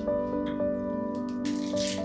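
Background music with held melodic notes that step from one pitch to the next, and a few light clicks near the start. About three-quarters of the way in, a crackly, hissy rustle joins the music.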